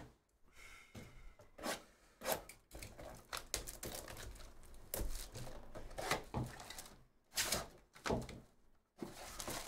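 Cardboard trading-card hobby box being handled and opened by hand: irregular knocks, rubs and scrapes of cardboard as the wrap and flap come open and the foil packs are pulled out.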